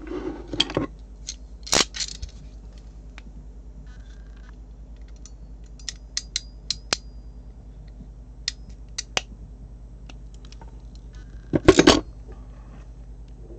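Sharp metal clicks and snips of an RJ45 crimping tool being worked by hand while trimming Ethernet cable wires, in small clusters. A louder clatter comes just before the end.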